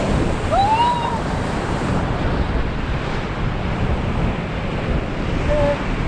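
Whitewater rapids rushing and crashing around an inflatable raft running through them, with wind and spray buffeting the microphone.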